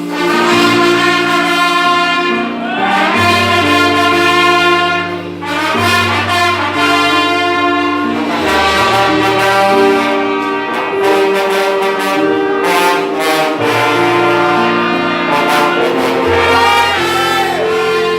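An orchestra with brass to the fore playing a piece: held chords over a bass line that steps to a new note every two or three seconds.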